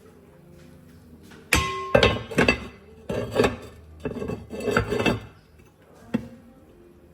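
A sharp knock with a short ring, then a few seconds of irregular clattering and clinking of hard objects, and one last single knock near the end.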